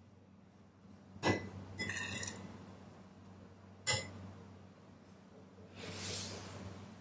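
Metal spoon stirring biscuit crumbs in a glass bowl: two sharp ringing clinks of the spoon against the glass, about a second in and again near four seconds, with gritty scraping of the crumbs between them and a longer, softer scrape near the end.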